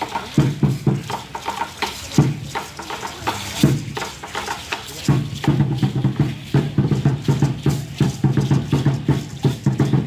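Aztec dance drumming on an upright huehuetl drum, with the dancers' seed-pod ankle rattles (ayoyotes) shaking as they step. A few spaced beats, then a steady quick beat from about halfway through.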